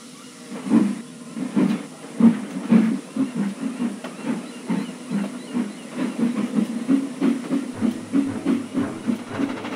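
Small steam tank engine chuffing as it pulls away, the exhaust puffs slow at first and quickening to two or three a second, with a steady hiss of steam.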